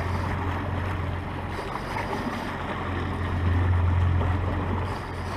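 Suzuki outboard motor running steadily as the boat moves, with water rushing past the hull. The engine's low hum swells for a moment about three and a half seconds in.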